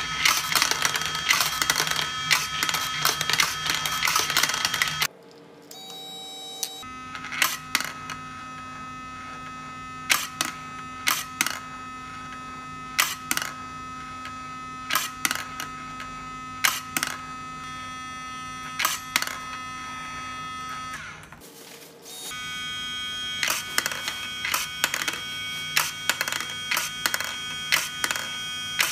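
Motor-driven perpetual-motion desk toys running: a steady electric-motor whine and hum under the clicks and rattles of a steel ball rolling in the plastic dish and on the wire track, about one click a second in the middle stretch. The motor drive is loud, a known drawback of these plug-in versions. The sound drops and changes abruptly about 5 s in and again about 21 s in as a different toy comes on.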